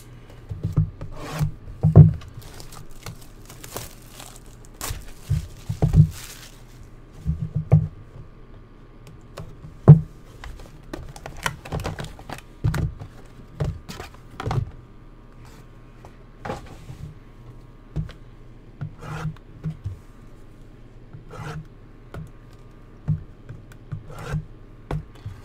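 Hands taking trading-card packs out of a cardboard box: irregular rubbing, scraping and rustling with sharp knocks against a table, the loudest about 2 and 10 seconds in.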